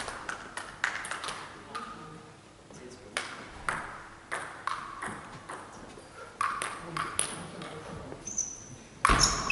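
Table tennis balls striking table and bats: a scatter of sharp pings and clicks, several with a short ring, followed by a louder run of hits near the end.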